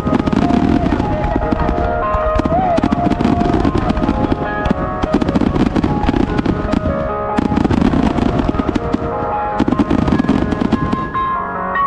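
Fireworks going off in a rapid barrage, with repeated low booms in several volleys and dense crackling, over music with sustained tones.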